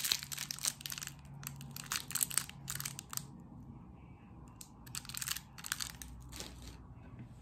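Plastic wrappers of wrapped candies crinkling as they are handled in the fingers. It comes in two bouts, with a pause of about a second and a half in the middle.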